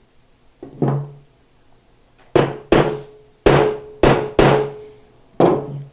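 Claw hammer striking the end of a red-handled awl set on a rifle's side plate, about seven sharp taps at uneven spacing, the first lighter. Each tap leaves a short metallic ring. The awl is punching a starting mark for a drilled bolt hole.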